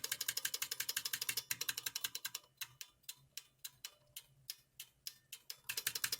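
One key on a Brand New Model F buckling-spring keyboard being pressed over and over: a fast run of about nine clicks a second, then slower single presses, then another fast run near the end. The key still sounds wrong after its spring was stretched, a sign of a spring that is not buckling properly.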